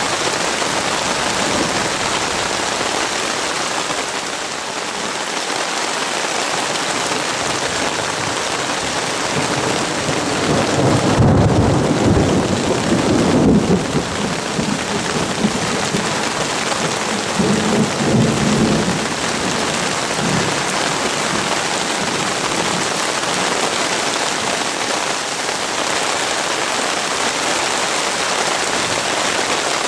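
Heavy thunderstorm rain hissing steadily. Thunder rolls and rumbles about ten seconds in, and again more briefly a few seconds later.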